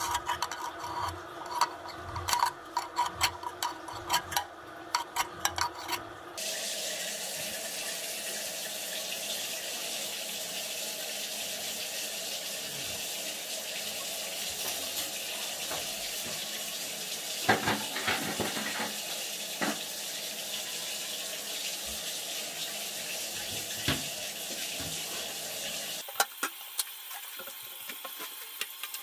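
A drain-cleaning cable rattling and scraping inside a floor-drain pipe clogged with hair and limescale, over a steady hum, for about the first six seconds. Then water runs steadily and stops near the end.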